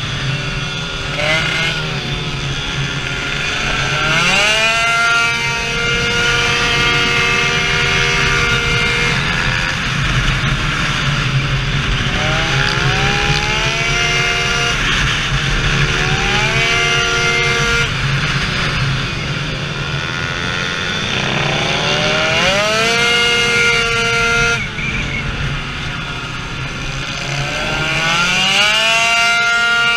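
Tuned 70cc two-stroke Minarelli scooter engine with a 2Fast cylinder and HK expansion exhaust, revving hard on track. Its pitch climbs fast and then holds high as the CVT variator shifts up. It drops off three times, near a third of the way, around two-thirds and shortly before the end, then climbs again each time.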